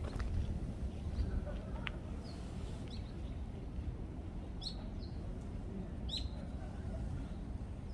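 Small birds chirping in short, quickly falling notes, the two clearest just under five seconds and just after six seconds in, over a steady low rumble of wind on the microphone.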